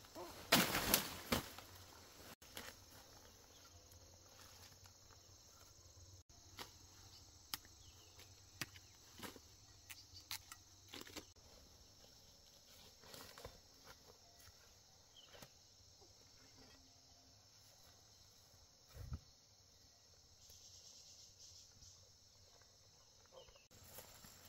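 Steady high chirring of insects, with a louder rustle of vegetation about a second in and scattered short rustles and snaps of leaves and twigs after it.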